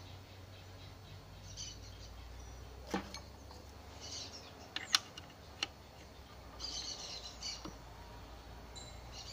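Small birds chirping in short bursts several times. Between them come a few sharp metallic clicks and taps, the loudest about five seconds in, as small parts are handled and fitted into the open gearbox casing.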